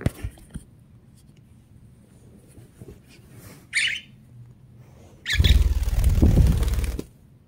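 A budgie gives one short, high squawk about four seconds in. Near the end comes the loudest sound: about a second and a half of rushing, rumbling handling noise as the phone is moved quickly. A few sharp clicks sound at the start.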